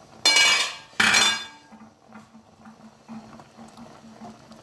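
Two loud, ringing metal clanks on an aluminium cooking pot, less than a second apart, as the pot and its lid are handled; after them, milk and carrots simmer faintly in the pot.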